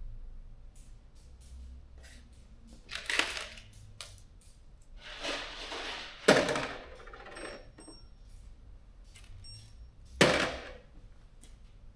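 Steel bolts being dropped into kit containers: three loud clatters about three, six and ten seconds in, with small metallic clinks between them.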